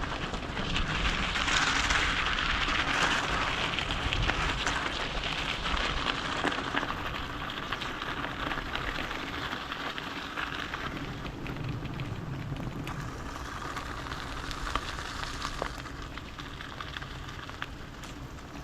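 Steady rain pattering, with many small crackling drop hits close to the microphone, louder in the first few seconds and then easing off somewhat.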